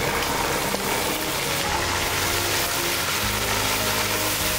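Background music with held notes over a steady hiss of food cooking in a pot.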